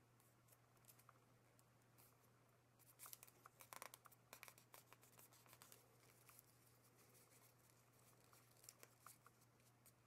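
Faint rustling and crinkling of origami paper being folded and creased by hand, busiest about three to five seconds in, over a low steady hum.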